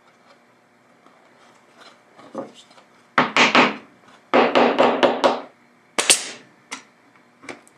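Claw hammer tapping an MDF brace into place on an MDF plate in two quick runs of taps. About six seconds in, a brad nailer fires a brad into the MDF with a sharp crack, followed by a couple of lighter clicks.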